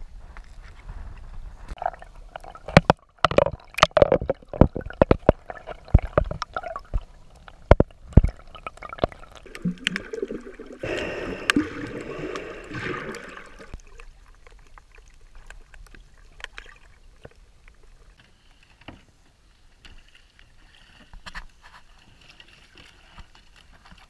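Water splashing and sloshing around an action camera at kayak level, with a run of sharp knocks. Then a gurgling rush of water for a few seconds as the camera dips under the surface, followed by quieter, muffled sound.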